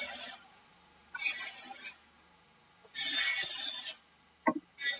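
Repeated rasping or scraping strokes, each just under a second long, coming about every two seconds, with a couple of small clicks between strokes.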